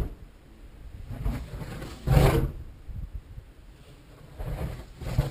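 Kinetic K2M dynamic-soaring glider rushing past at very high speed on its circuit: one loud roaring pass about two seconds in and another building near the end, over a low rumble of wind on the microphone.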